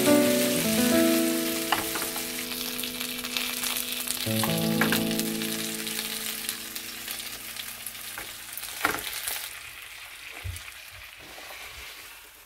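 Gyoza frying in a hot pan: a loud sizzle that gradually dies down, with a few light knocks.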